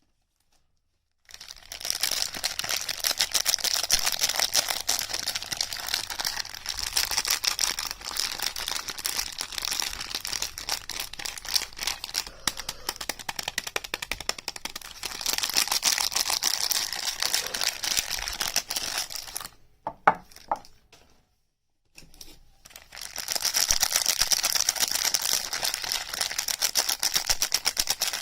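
Rapid, dense crinkling and crackling of packaging being handled and unwrapped, in two long stretches. A couple of sharp clicks fall in the short pause about twenty seconds in.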